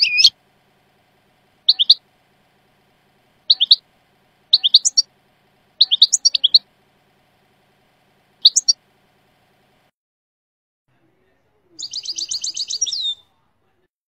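European goldfinch song from a Jordanian-type tutor tape: short, sharp, high calls in clusters of two to four, coming every second or two, then a fast rattling trill of about a second and a half near the end.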